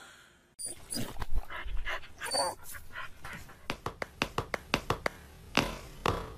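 Dog whimpering and giving short yips, with a run of quick sharp clicks in the middle.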